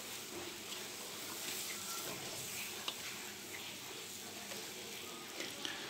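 Boiled mung dal sizzling faintly in oil in a metal karahi while a spatula stirs it, with a few light scrapes and taps of the spatula on the pan. It is the stage where the dal is stir-fried into the spiced chicken skin.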